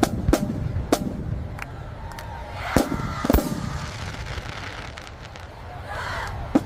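Fireworks going off: about seven sharp bangs at uneven intervals, each with a short echoing tail, the loudest pair about three seconds in.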